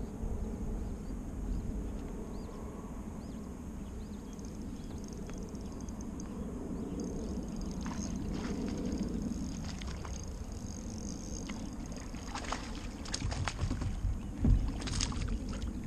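Handling sounds in a fishing kayak on the water: scattered clicks and light knocks over a steady low rumble, with a louder knock near the end.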